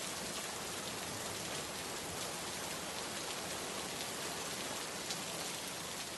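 Steady rain, an even hiss with faint scattered drop ticks.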